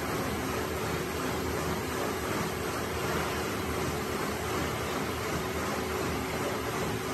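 Steady rushing background noise with a faint, even hum underneath; no distinct knocks or clatter stand out.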